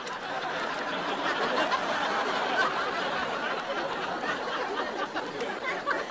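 Sitcom studio audience laughing steadily.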